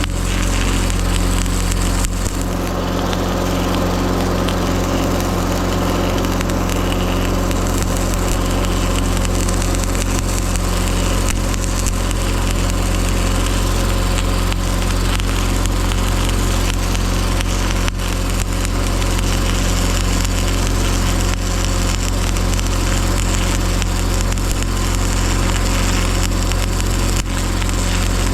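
Stick welding: a continuous crackling arc over the steady hum of a portable engine-driven welder running under load. The weld is being laid to build up a broken log-loader pin ear around its bushing.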